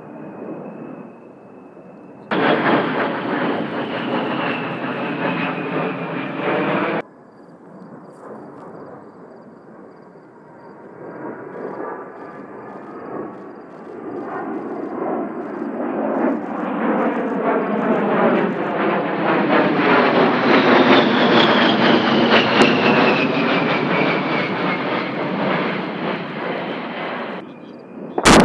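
A-10 Warthog's twin TF34 turbofan engines whining as the jet flies past; the high whine falls in pitch twice as it goes by, and the jet noise swells to its loudest in the second half. A sharp bang just before the end.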